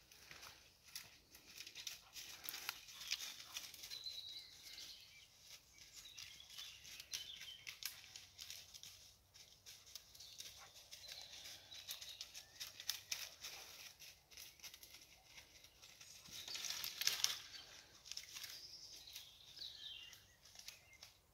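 Dry grass, dead leaves and twigs rustling and crackling with movement through leafless undergrowth, loudest about seventeen seconds in. A few faint bird chirps come now and then.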